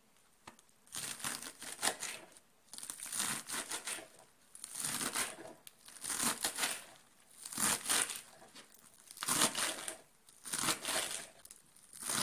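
Kitchen knife chopping a bunch of fresh coriander, dill and spinach on a plastic cutting board: short runs of quick, crisp chops through the leaves and stems, repeating about every second and a half with brief pauses.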